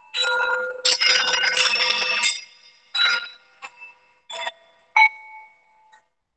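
Metal singing bowls struck with a beater, each strike giving a bright ring of several clashing tones that dies away quickly. A quick run of overlapping strikes comes about a second in, followed by single strikes every half second to a second.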